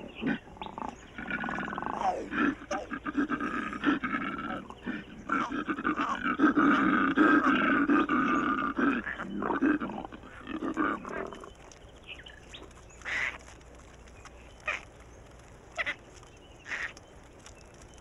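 Koala calling harshly during a confrontation with an approaching bull, a long pulsing call lasting about eleven seconds. It is followed by a few short, sharp sounds.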